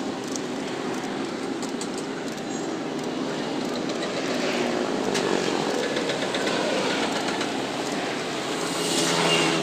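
Steady low mechanical rumble, with a few light metallic clinks.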